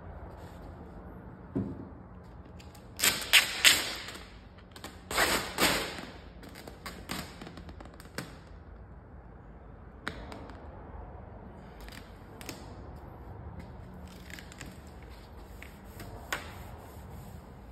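Large sheet of vinyl wrap film crackling and rustling as it is lifted, stretched and laid against a car door, with two loud bursts of crinkling a few seconds in and scattered light snaps and taps after.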